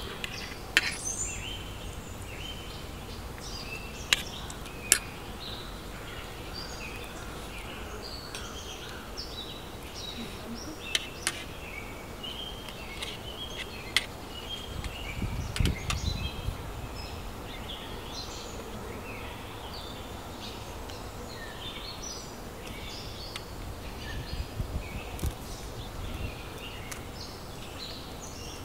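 Small birds chirping and twittering throughout, over steady outdoor background noise. A few sharp clicks are scattered through, and there are low rumbles about halfway through and again near the end.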